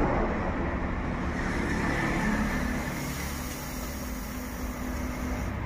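Electronic weigh-filling machine dosing dry product into a pouch held under its chute: a steady rushing hiss of product pouring, with a low hum from the machine's feeder.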